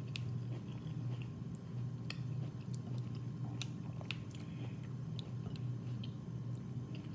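A person chewing and eating sauce-coated seafood-boil vegetables close to the microphone, with scattered wet mouth clicks and smacks over a steady low hum.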